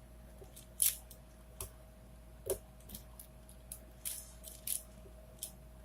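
A 4x4x4 Rubik's cube (Rubik's Revenge) being turned by hand: irregular short plastic clicks and scrapes as its layers are twisted, about one or two a second.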